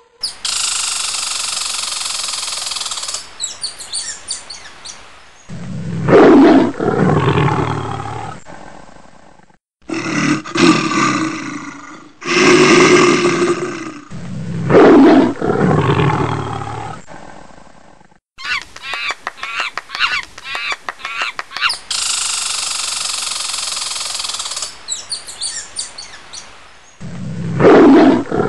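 A series of loud roars from a large wild animal, each a couple of seconds long and dropping in pitch, separated by stretches of rough hissing and a rapid rattling growl.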